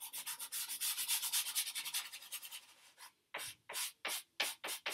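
A yellow pastel stick rubbed quickly back and forth on paper, shading in a yellow undertone. About three seconds in the rapid scribbling gives way to separate strokes, about three a second.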